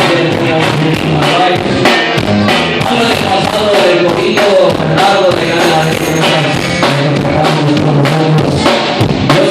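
Band music with a steady drum-kit beat under a pitched melody.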